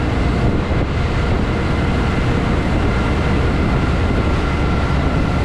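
Motorboat engine running steadily under way: a loud, even rumble with a faint steady whine above it.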